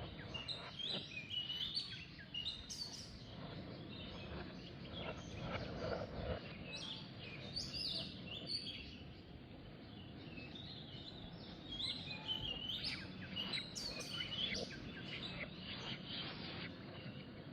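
Outdoor ambience of many birds chirping in short, scattered high calls over a steady background hiss.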